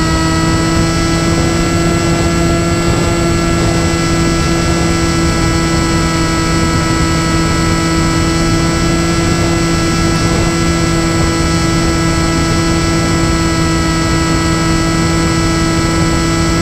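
RC flying wing's motor and propeller running at steady cruise throttle, heard from the onboard camera as a loud, even droning whine, with wind rushing past the airframe underneath.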